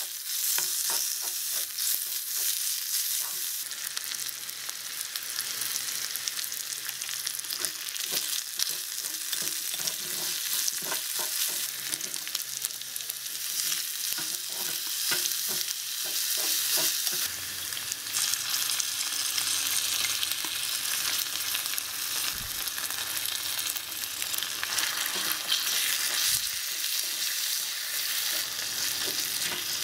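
Mushrooms sizzling in a small metal wok over a live flame, with a steady hiss, while a wooden spatula scrapes and taps against the pan as they are stirred; the taps come thickest in the first half.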